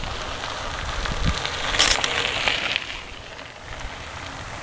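Mountain bike tyres crackling over gravelly dirt as riders roll past, loudest about two seconds in, with some low rumble underneath.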